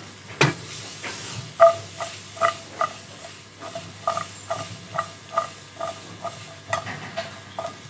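Granite-coated wok being tossed over a portable gas stove, its base knocking on the burner grate in a steady rhythm of about two to three ringing knocks a second as carrot strips are sautéed.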